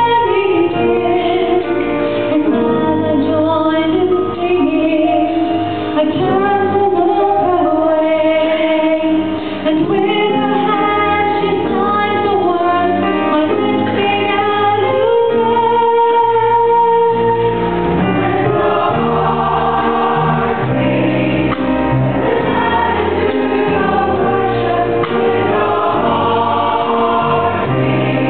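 Church choir singing a gospel song, the voices holding and moving between sustained notes without a break.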